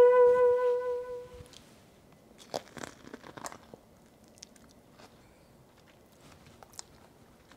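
A held music note fades out, then a bite into grilled corn on the cob gives a short cluster of crisp crunches about two and a half seconds in, followed by a few faint clicks of chewing.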